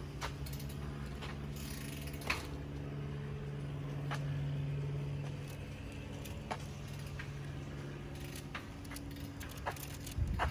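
Bicycle being ridden, its parts rattling and clicking irregularly, over a steady low hum that swells briefly about halfway through.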